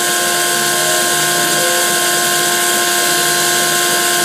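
Belt-driven spindle of a CNC-converted Grizzly G0704 milling machine running at a steady whine while the end mill cuts Delrin, over a constant hiss. Short, shifting tones from the stepper motors come and go as the axes move the cutter.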